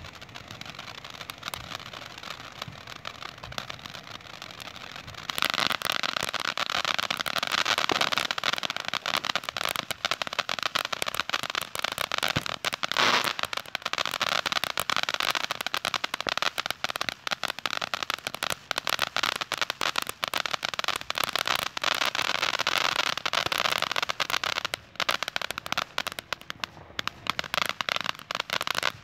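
Ground fountain firework spraying sparks: a dense hiss packed with rapid crackles. It jumps much louder about five seconds in and thins to scattered crackles near the end.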